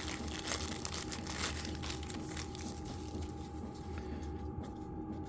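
Oily wax paper crinkling as a small part is unwrapped, the rustling thinning out after about three seconds, over the low hum of a diesel heater.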